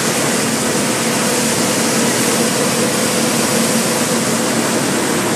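Combine harvesters running with their unloading augers on, grain pouring from the spouts into a truck trailer in a steady rushing hiss over an even engine hum.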